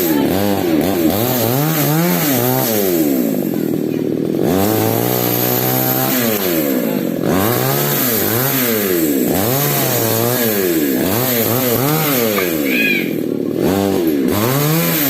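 Falcon mini chainsaw's small two-stroke engine running loud, its pitch rising and falling over and over about once a second, with a steadier high stretch from about five to seven seconds in.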